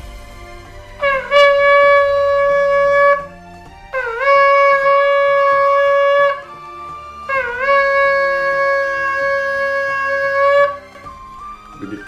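Ram's-horn shofar blown in three long, steady blasts (tekiahs). Each opens with a brief upward scoop in pitch and then holds one note. The third blast is the longest, at over three seconds.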